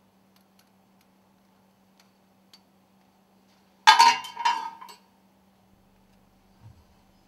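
A quick run of sharp metallic clinks lasting about a second, from steel ring segments, their garter spring and a hand tool being handled during assembly of a piston rod stuffing box. A soft low thump follows near the end.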